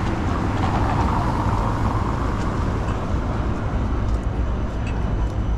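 City street traffic on wet roads: a steady low rumble, with the tyre noise of a passing vehicle fading away over the first two or three seconds.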